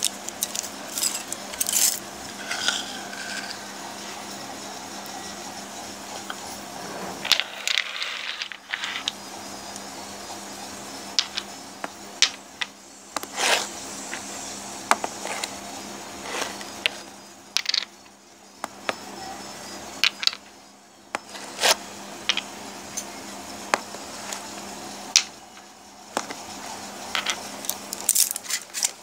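Handling noises: irregular clicks, knocks and scrapes of small plastic paint jars being picked up and set down on a hard surface, over a steady background hum.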